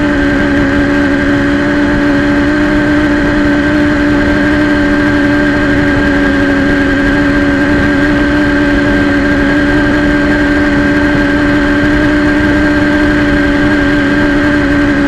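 Racing quadcopter's brushless motors and propellers running at a steady speed while it sits on the ground: a loud, even buzz with a rough rushing noise underneath, heard close up from the quad's own camera.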